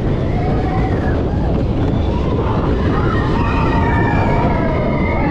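Big Thunder Mountain Railroad mine-train roller coaster running along its track: a loud, steady rumble, with faint, long, high tones drawn out over it from about two seconds in.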